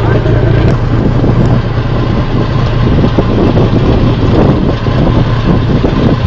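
Boat engine running steadily, a constant low hum, with wind rushing over the microphone.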